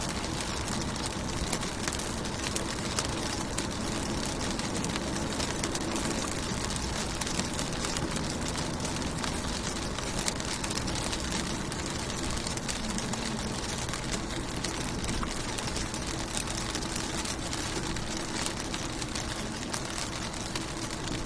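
Rain falling on a car window: many small drop ticks over a steady hiss, with a faint steady low hum underneath.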